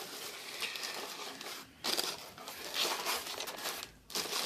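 Cardboard shipping box being handled open and the plastic packing inside it crinkling and rustling under the hands, with two brief pauses.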